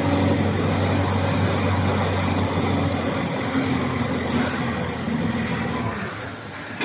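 A vehicle engine runs steadily with a low hum. The hum drops away about six seconds in.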